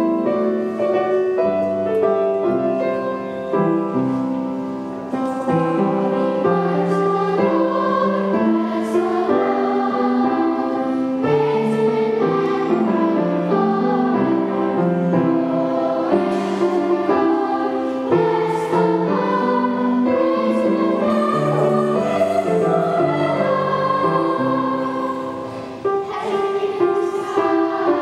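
Children's choir singing a song with piano accompaniment.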